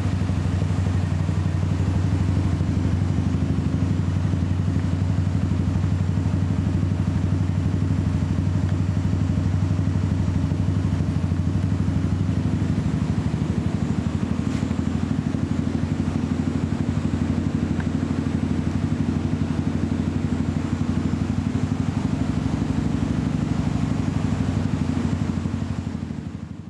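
Hammerhead 150cc buggy's GY6 four-stroke single-cylinder engine idling steadily through an aftermarket MRP exhaust, fading out near the end.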